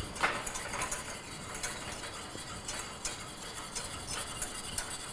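Wire whisk beating egg yolks and water into a sabayon in a stainless steel saucepan over low heat, the wires scraping around the pan with repeated ticks as they strike its sides. This is the yolks being cooked slowly into a smooth sabayon, the base of a béarnaise sauce.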